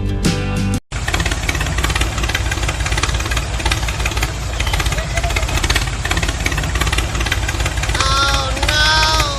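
A motor running with a rapid, steady rattling chatter, and a voice calling out briefly near the end.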